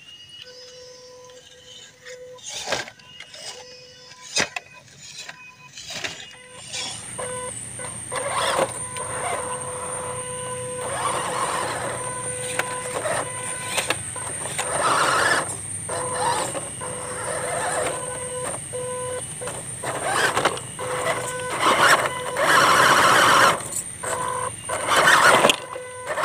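Electric motors and geartrains of 1/12-scale RC rock crawlers (an MN99S Land Rover Defender and an MN78 Cherokee) whining at a fixed pitch as the throttle is blipped on and off. Tyres churn through mud and water, with clicks and knocks as the wheels climb over rocks. The driving gets louder near the end.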